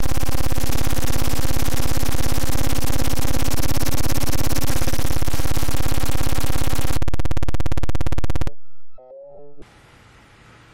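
Synthesized sci-fi noise effect: a loud, rapidly pulsing electronic buzz with steady tones, cutting off abruptly about eight and a half seconds in. A few short warbling tones follow, then a faint low hum.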